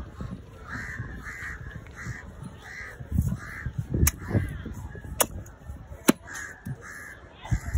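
A heavy knife chopping fish on a thick wooden block, with several sharp strikes in the middle stretch. Behind them, crows caw over and over, about twice a second.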